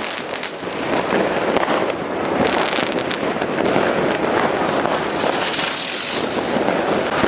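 Many fireworks and firecrackers going off at once: a dense, unbroken crackle of small bangs, with a stretch of hissing about five seconds in.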